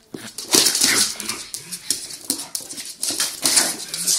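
A pug and a small dog playing rough: short dog vocal noises mixed with scuffling and scrabbling on a wooden floor, in irregular bursts.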